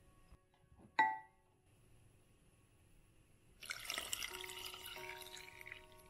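Liquid wet ingredients poured from a bowl onto flour in a glass mixing bowl, a splashing pour lasting about two seconds, preceded about a second in by a single ringing clink of crockery. Soft piano music plays underneath.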